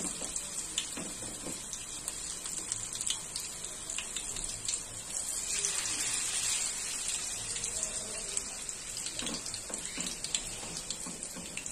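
Onion and potato pakoras deep-frying in hot oil: a steady sizzle with scattered crackles as the batter goes in.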